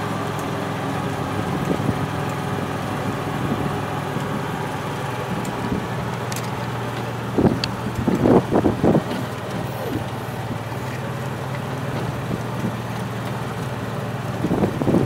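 Golf cart driving along with a steady hum, and a cluster of knocks about seven to nine seconds in.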